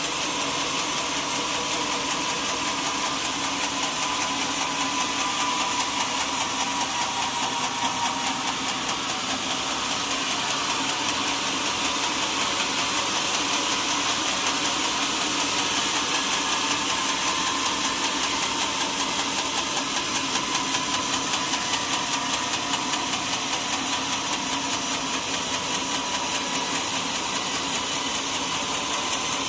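Sawmill machinery running with a steady, unbroken mechanical drone and a fine, even pulse in its loudness.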